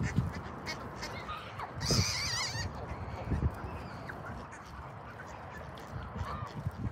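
Canada geese and mallards calling in a flock, with scattered honks and quacks. About two seconds in there is a brief high wavering call.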